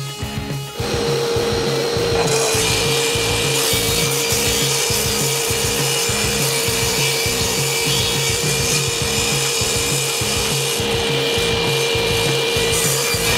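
Table saw switching on about a second in, then ripping pallet-wood boards into thin strips: a steady blade whine under the continuous noise of the cut.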